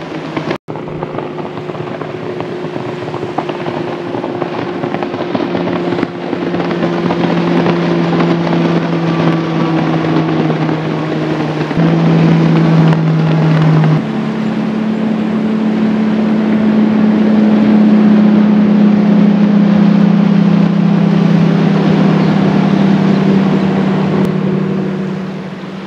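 High-powered outboard motors of bass boats running at speed on plane, a steady loud drone whose pitch steps up and down as boats pass one after another.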